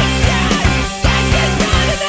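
Studio recording of a rock band playing with a steady beat.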